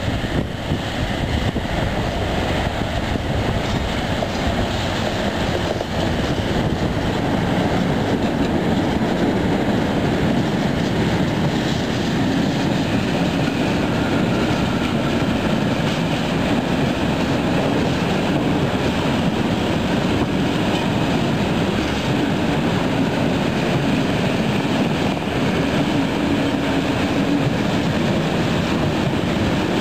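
A freight train of tank wagons rolling past close by: a steady, continuous rumble and clatter of steel wheels on the rails.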